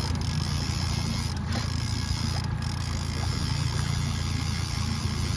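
Boat engine running steadily at trolling speed, a low, even drone.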